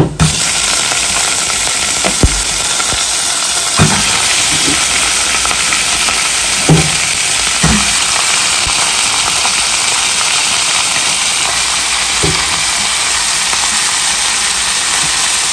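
Raw marinated chicken pieces sizzling in hot olive oil and browned onion in a stainless steel pot: a loud, steady hiss, with a few short knocks scattered through it.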